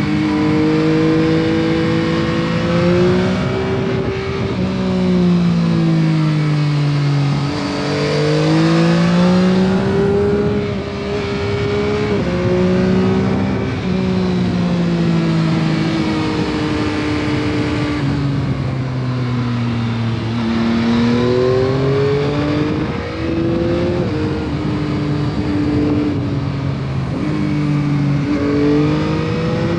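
Stock exhaust of a 2021 Yamaha MT-09 SP's 890 cc inline three-cylinder engine under way. The engine pitch repeatedly rises under acceleration and falls back at shifts and while slowing, with several sudden drops where it changes gear.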